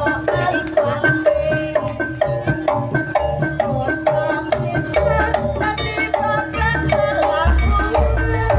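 Jaranan ensemble music: drum strokes keeping a steady beat under a repeating pitched melody, with a deeper, heavier beat coming in near the end.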